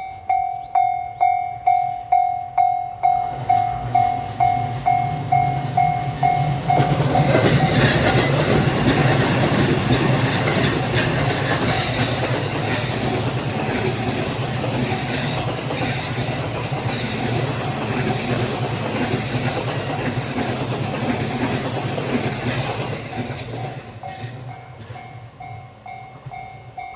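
A Japanese level-crossing bell rings in a steady pulse of about two and a half rings a second. An E235-1000 series electric train passes through, its wheels clattering on the rails and drowning out the bell. The bell comes back near the end as the train moves away.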